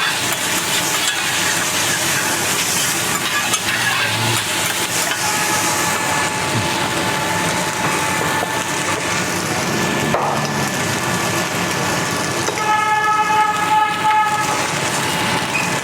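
Fried rice sizzling on a teppanyaki iron griddle while metal spatulas scrape and chop through it. A steady whining tone sounds through the middle and is loudest for about two seconds near the end.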